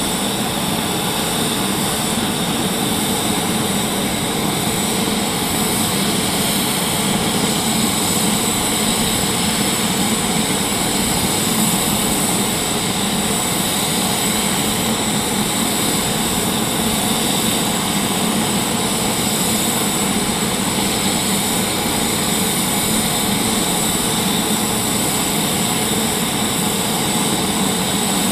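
CV-22 Osprey tiltrotor's turbines running steadily on the ground: an even rushing noise with a steady high whine over it.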